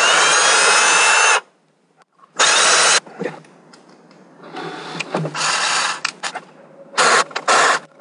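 Cordless drill driving screws into a wooden cabinet panel in short runs: a run of about a second and a half at the start, a shorter one about two and a half seconds in, quieter running around five seconds, and two quick bursts near the end.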